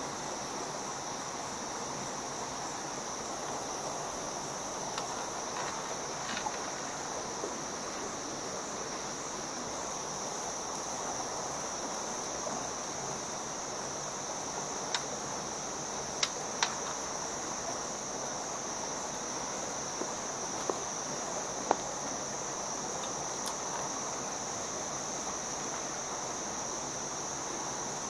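Insects droning steadily in a high, unbroken tone over the low rush of stream water, with a handful of sharp clicks in the middle of the stretch.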